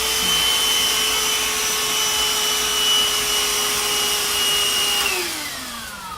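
Black & Decker lithium-ion cordless handheld vacuum running with a steady whine and rush of air, then switched off about five seconds in, its motor winding down in a falling pitch.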